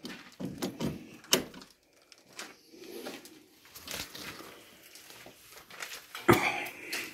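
Footsteps with scattered scuffs and knocks, and a sharp knock about six seconds in.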